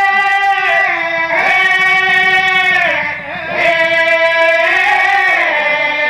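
Odia Pala ballad singing: one high voice holds long drawn-out notes and slides smoothly from pitch to pitch in a melismatic line.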